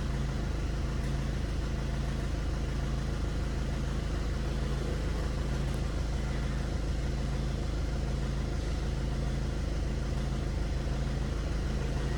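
Maruti Swift Dzire's turbo-diesel engine idling steadily, a low even rumble that swells faintly about once a second.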